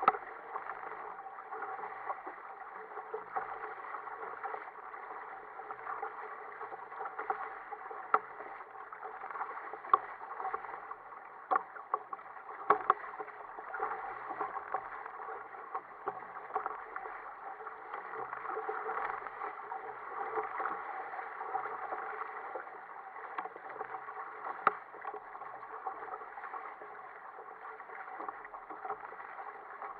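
Water rushing and gurgling along the hull of a sail-rigged Ocean Kayak Prowler 13 as it sails through choppy sea, with a few sharp knocks along the way.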